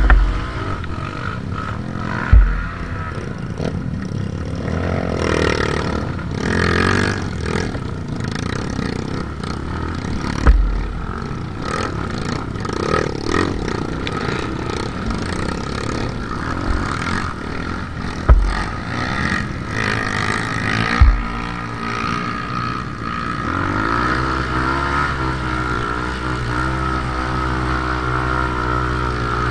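Dirt bike engine running close by and revving in uneven bursts, broken by several short low thumps. About three quarters of the way through it settles into a steadier, higher rev.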